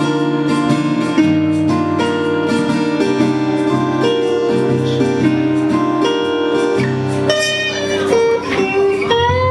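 Live band music led by guitar: a run of plucked notes over a sustained bass, with pitches bending and sliding up and down near the end before settling on a held note.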